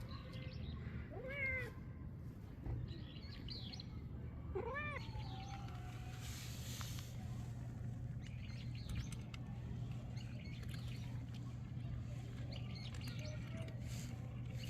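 A cat meowing twice, two short meows that rise and fall in pitch, one about a second and a half in and one about five seconds in.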